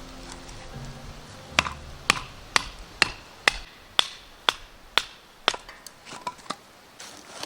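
Background music fades out, then about nine sharp blows come at an even pace of roughly two a second, each with a short ringing tail, like chopping or hammering. A few softer knocks follow near the end.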